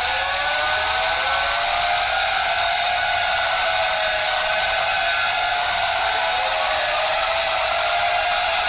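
Alarm siren wailing, its pitch swooping up near the start and again about halfway, then wavering, over a loud steady hiss.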